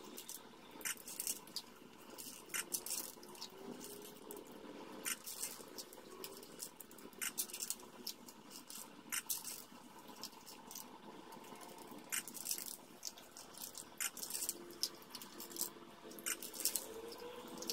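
A small dog eating her dinner at a wooden food dispenser: irregular sharp clicks and crunches, sometimes several in quick succession, with pauses between.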